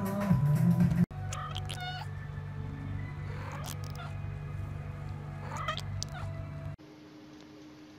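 About a second of music cuts off. Then a long-haired cat meows repeatedly over a steady low hum, with drawn-out calls.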